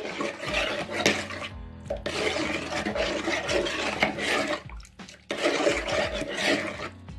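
Metal spoon stirring water in a plastic bowl, scraping the bowl and swishing the liquid as brown sugar dissolves.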